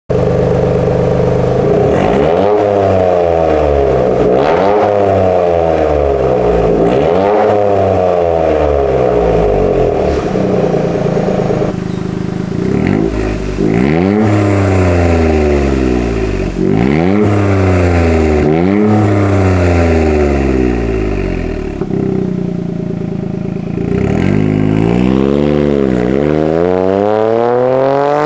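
Toyota GR Yaris 1.6-litre turbocharged three-cylinder engine breathing through catless downpipes, revved again and again, each rev rising quickly and falling back over a second or two. Near the end the car pulls away.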